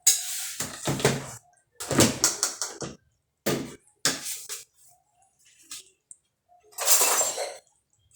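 Utensils scraping and clattering against a pot and plates in a series of short bursts, as food is served out; the longest scrape comes near the end.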